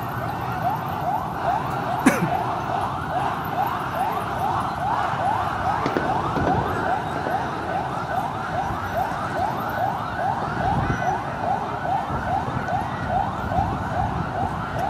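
Vehicle siren sounding in a fast rising yelp, about three sweeps a second, over the low din of a large crowd, with one sharp bang about two seconds in.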